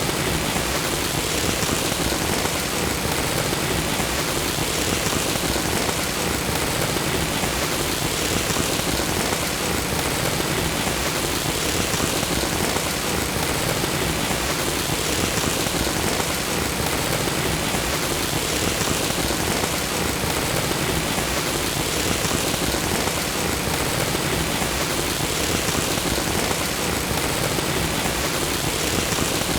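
Lightsaber idle sound effect: a steady, hissing, crackly hum held unchanged, starting abruptly.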